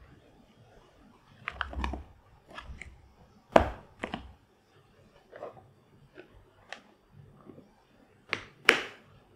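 Plastic bento lunch box being closed up by hand: a series of sharp plastic clicks and knocks as an inner compartment lid is pressed on and the outer lid shut. Two loud snaps near the end as the latch is pushed down.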